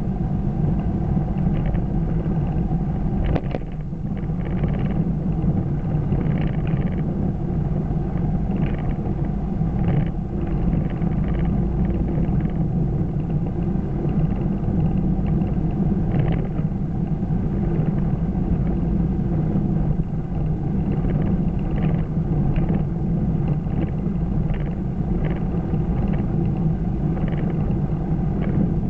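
Steady cabin drone of a car cruising at about 50–55 mph, engine and road noise heard from inside, with a few faint short clicks scattered through.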